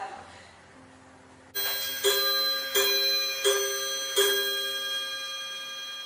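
A bell chimes five times, about two-thirds of a second apart, like a clock striking. Each stroke rings on into the next. Before the first stroke, about a second and a half in, there is only faint room sound.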